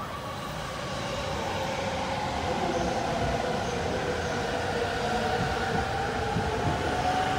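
JR East E231 series 500 electric commuter train pulling away and accelerating: the traction motors' whine rises slowly in pitch and grows louder over the rolling noise of the cars.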